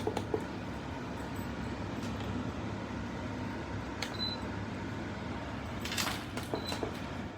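ZAFRO 10,000 BTU portable air conditioner humming steadily, with button clicks on its control panel. Two short high beeps sound, one about four seconds in and one near the end, and there is a brief rustle about six seconds in.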